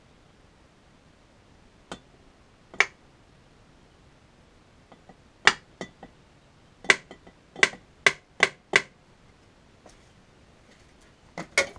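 Hammer tapping a nail used as a punch, setting pilot marks in a metal mounting plate on an outboard's lower unit: sharp metallic taps in short groups, including a quick run of five.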